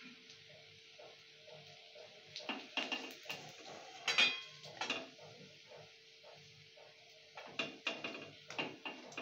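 Metal spatula scraping and clinking against a metal wok as fried coconut fritters are turned and lifted out of the oil. The scrapes come in two bursts, the loudest a single ringing clink about four seconds in.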